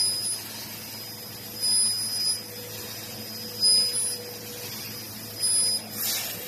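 CNC machine running with a steady low hum, and a high-pitched tone that sounds in short spells about every two seconds.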